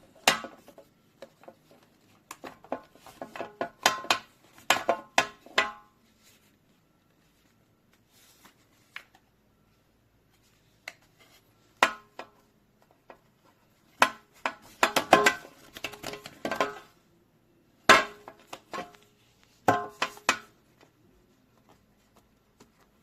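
Irregular bursts of clicks and clatters, hard objects being handled and knocked together, with quiet gaps between the bursts.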